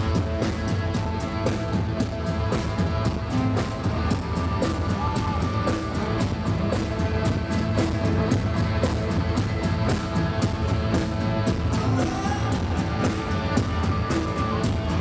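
Rock band playing, with a steady drum beat under guitars.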